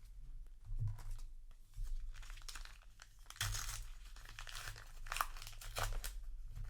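Paper trading-card booster pack being torn open and crinkled, in several short rustling bursts.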